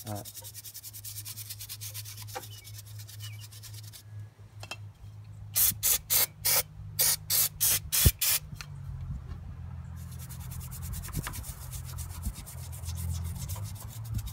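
Small wire brush scrubbing hardened carbon and old oil off the top of a Kohler K301 engine in quick back-and-forth strokes. About halfway through come around nine short spray blasts from a can of brake parts cleaner, then the scrubbing resumes.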